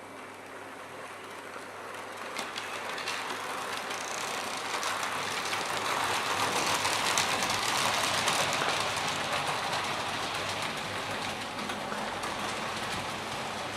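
Hornby OO gauge Class 73 model locomotive running along the track, its motor whirring and wheels clicking over rail joints. It grows louder to a peak about halfway through, then eases off a little as it moves on.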